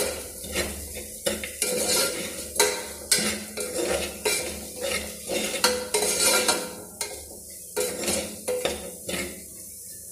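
A spoon scraping and clinking against the inside of a pressure cooker in quick repeated strokes as frying peas and spices are stirred, over a light sizzle. The strokes stop near the end.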